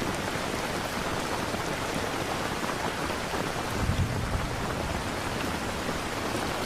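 Steady rain mixed with a waterfall, with a brief low rumble of distant thunder about four seconds in.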